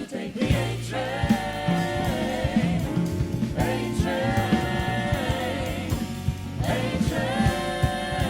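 Vocal group singing close harmony, holding chords with vibrato in three phrases, over a bass line and a steady beat.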